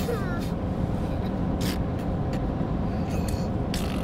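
Steady rumble of a pickup truck's engine and road noise, heard from inside the cab while it drives along hauling a trailer. A child's short voice trails off at the very start.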